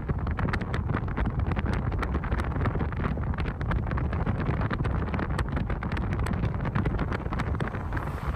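Wind buffeting the microphone over the steady low rumble of a moving vehicle, with frequent small crackles.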